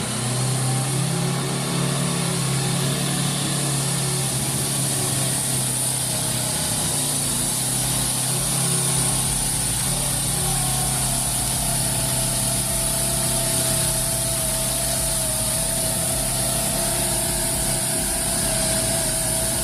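A machine's engine running steadily, with a steady whine joining about halfway through.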